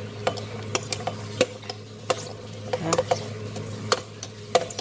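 Light, irregular clicks and taps of bowls and chopped celery and olives as they are tipped from a clear bowl into a glass salad bowl, over a steady low hum.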